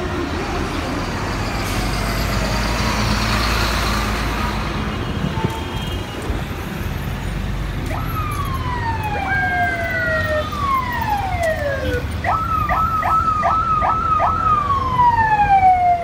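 Passing traffic, then from about halfway an electronic vehicle siren sounding in falling pitch sweeps. Near the end it breaks into a quick run of about five short chirps before one more long falling sweep.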